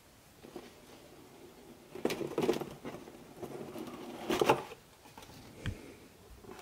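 Cardboard kit box being handled and its lid lifted off: two short scraping rustles of cardboard, about two and four seconds in, then a soft knock near the end.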